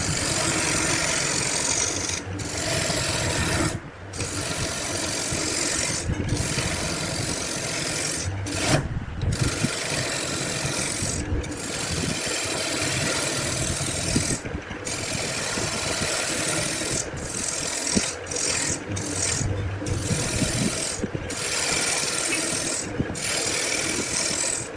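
Wood being worked with an abrasive tool: a steady scratchy rasping and rubbing, broken by brief pauses every second or two.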